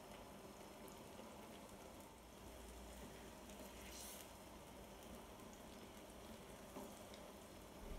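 Faint sizzling of a potato-and-egg tortilla mixture frying in olive oil in a pan, with a few small ticks.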